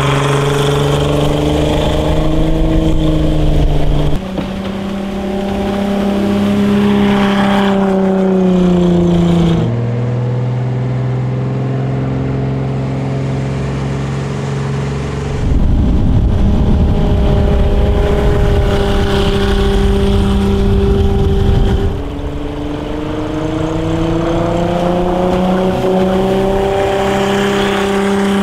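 Boat-mounted 2.8-litre VW VR6 six-cylinder engine running at speed, its pitch rising and falling with the throttle over several separate stretches. A loud rushing noise covers a stretch past the middle.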